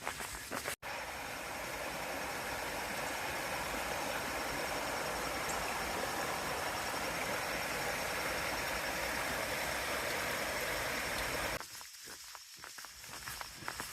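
Steady rushing of a small stream's flowing water, starting abruptly about a second in and giving way near the end to quieter, irregular sounds.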